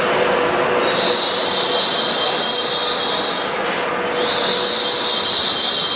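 Trenitalia ETR104 'Pop' electric regional train moving slowly along the platform: steady running noise with a high-pitched whine that drops out briefly twice.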